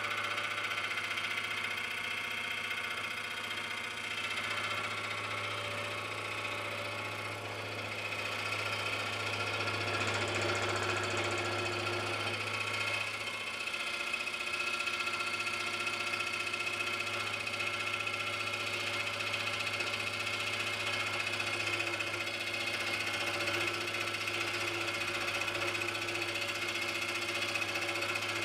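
Small scroll saw running steadily, its blade reciprocating as it cuts through a thick brass bar.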